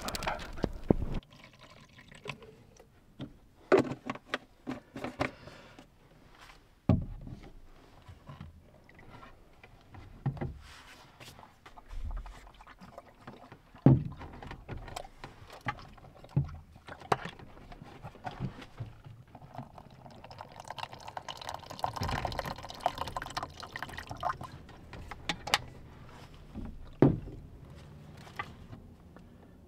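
Hand-handling sounds on a wooden board table: scattered knocks and clunks as a vacuum flask and a cup are picked up and set down. About twenty seconds in, liquid is poured from the flask into the cup for a few seconds.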